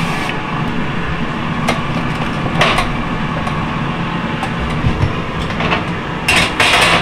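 Steady hum of a running air fryer and convection oven fan, with short hissing bursts of cooking spray misted over breaded zucchini. Near the end a brief double clatter as the metal mesh crisper tray slides into the oven.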